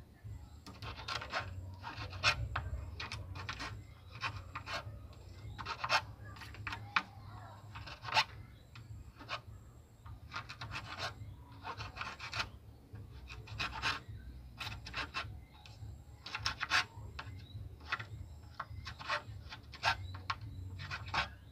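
Loose hacksaw blade, worked by hand, scraping and rasping inside a drilled hole in green bamboo in short, irregular strokes as it clears out the leftover fibres.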